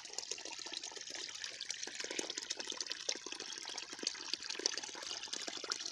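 A small stream of water trickling and splashing over rocks and leaves, a steady running-water sound with many small splashes.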